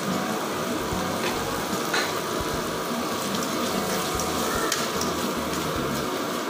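Tomatoes, capsicum and coriander stems sizzling in hot oil in a pan, a steady hiss, while a steel spoon stirs them and clinks against the pan a few times.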